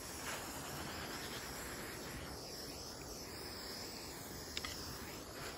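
Handheld butane torch flame hissing steadily while heating lead body solder on a fender seam, with one faint tick about four and a half seconds in.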